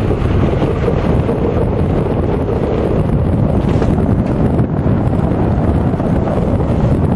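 Loud, steady wind buffeting a microphone carried on a moving electric bike.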